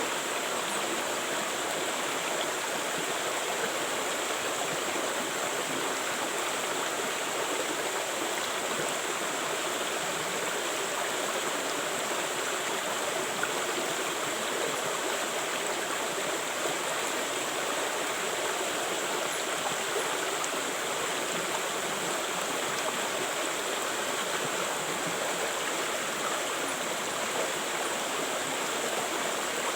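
River water flowing and rushing over rocks, a steady, unbroken rush.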